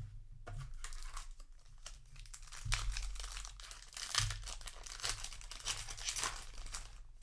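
Plastic-foil booster pack wrapper crinkling and being torn open by hand, with louder rips about three and four seconds in.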